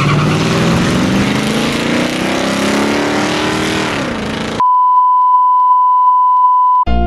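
Drag-racing vehicles launching and accelerating away down the strip, their engine note rising steadily for about four seconds. It then cuts off abruptly for a loud, steady test-tone beep that runs for about two seconds.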